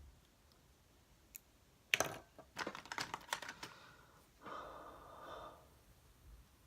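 Light clicks and taps of a makeup brush and eyeshadow palette being handled, a quick cluster of them, followed by a soft brushing hiss.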